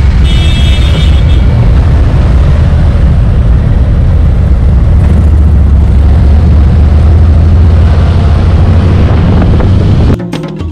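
Motorcycle riding at a steady highway speed: a constant low engine drone under heavy wind rush, cutting off suddenly near the end.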